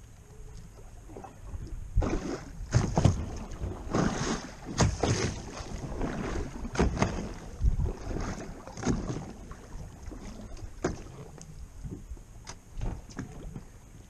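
Water lapping and slapping against the side of a drifting boat in irregular splashes, busiest for the first two-thirds, then easing off.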